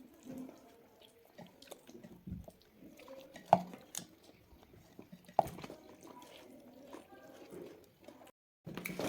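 Eating sounds from a person chewing chicken: soft chewing and mouth noises, with two sharp clicks a couple of seconds apart in the middle. The sound drops out briefly near the end.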